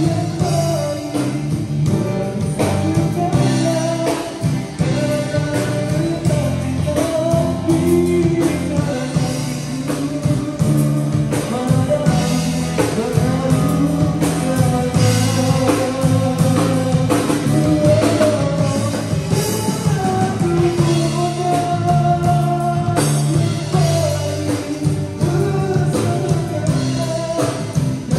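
Live band playing a song: a man sings a melody into a microphone over guitar and a drum kit.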